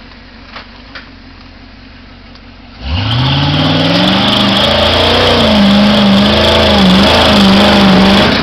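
Lifted Chevy mud-bog truck's engine idling low, then about three seconds in revving hard, its pitch sweeping up and held high with small wavers. This is the truck under full power driving up out of the mud hole, its tires churning through mud.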